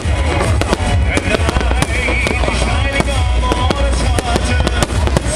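Fireworks display bursting in quick succession: many sharp cracks and bangs over a continuous deep rumble, with music playing along underneath.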